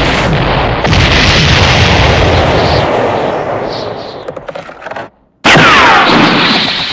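Loud cartoon sound effects: a long rumbling blast that fades away over about four seconds and then cuts off. After a moment of silence, another loud burst comes in with a falling whistle.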